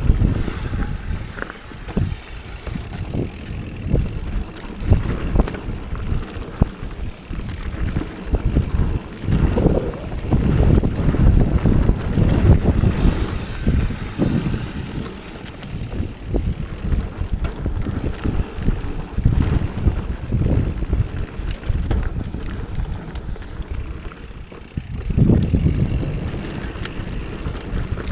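Santa Cruz Hightower 27+ mountain bike riding fast down a dirt singletrack: tyres rumbling over the ground, with frequent knocks and rattles from the bike over bumps and wind rumbling on the microphone. The rumble grows louder about ten seconds in and again near the end.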